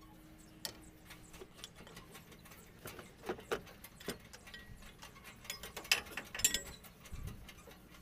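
Metal clicks and clinks of a socket wrench working the bolts on a truck's power steering box, with a run of louder, quicker clicks about six seconds in.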